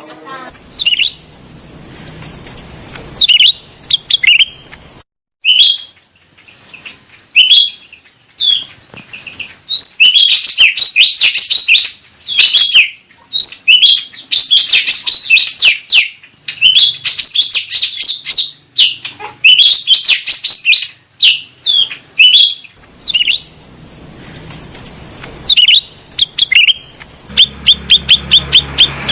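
Cucak rante (cucak ranting) songbird calling with sharp, high chirps. They come scattered at first, then in dense, rapid runs through the middle, and near the end as a quick even series of about four notes a second.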